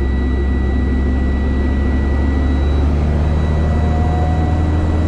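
Tractor-trailer truck's diesel engine held steady at about 1,500 rpm under light throttle, heard as a steady low drone inside the cab. The raised engine speed drives the air compressor faster to build the air brake pressure.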